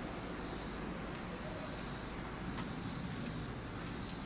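Insects chirping outdoors: a steady high-pitched trill with a pulsing chirp that repeats a little more than once a second.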